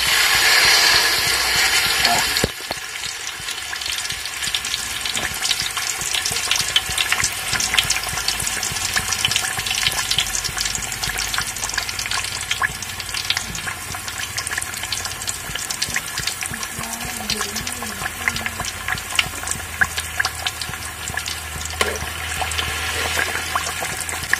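Masala-coated pomfret frying in hot coconut oil in an aluminium pot: a loud hiss for the first two seconds or so as the fish goes in, then steady sizzling with a constant crackle of small pops. Near the end the hiss rises again as more masala is ladled into the oil.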